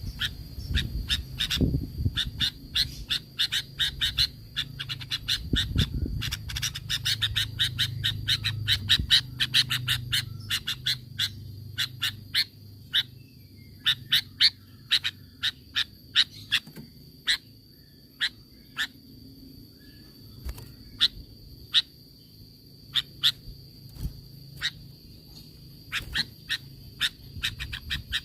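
Sooty-headed bulbul (kutilang) giving a long run of short, sharp call notes, densely packed in the first half and more spaced out in the second, over a steady high-pitched tone.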